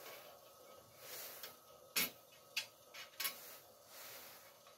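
A few light metallic clinks and faint scraping as steel penny washers, a bolt and a flat steel bar are handled and set down on a steel plate, the sharpest clink about two seconds in.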